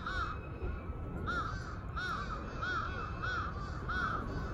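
Crows cawing noisily in a fast run of short calls, about three a second, over a low steady rumble.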